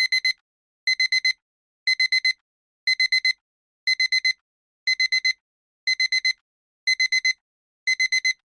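Digital alarm clock beeping as the countdown timer runs out: rapid groups of four short, high-pitched beeps, repeated about once a second.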